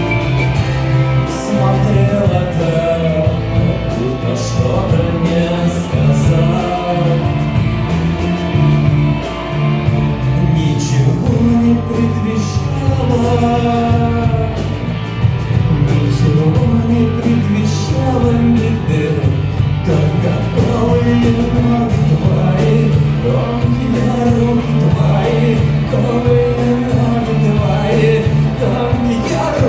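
A song playing: a singing voice over a steady rock-style band accompaniment.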